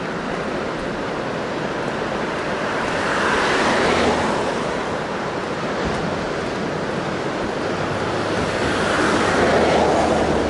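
Steady wash of surf from the sea below, with road traffic alongside. It swells twice as vehicles pass on the bridge's roadway, about three and a half seconds in and again near the end.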